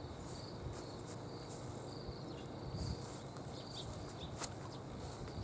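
Outdoor ambience of insects and birds calling: short high chirps repeating about once a second over a faint high hiss, with a low rumble underneath.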